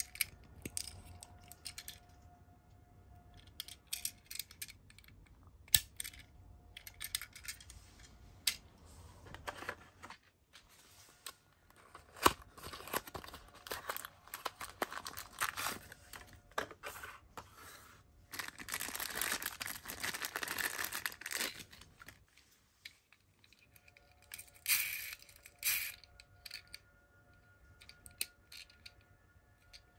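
Small toy cars clicking and knocking as they are handled. Through the middle there is a long stretch of cardboard packaging tearing and rustling as a toy mini car box is opened.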